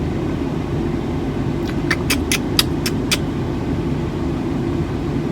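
Steady low hum of a vehicle idling with its air conditioning running. About two seconds in comes a quick run of about six sharp clicks.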